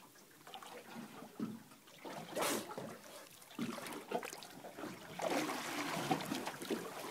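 Water splashing and trickling as a dolphin surfaces alongside a boat, with one brief sharp burst of noise about two and a half seconds in. The sloshing grows louder and busier about five seconds in.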